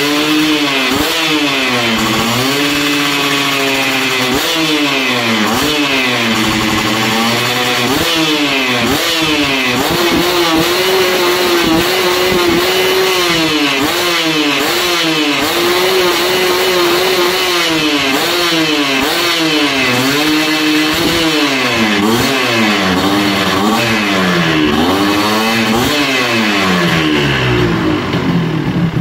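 Yamaha 125Z two-stroke single-cylinder engine being blipped over and over, its pitch rising and falling back each time, with a few brief held high revs, then settling to idle near the end. It is a main-jet check after carburettor tuning: revs that drop back quickly mean the main jet is sized right. The owner calls the block very noisy, in need of a rebore.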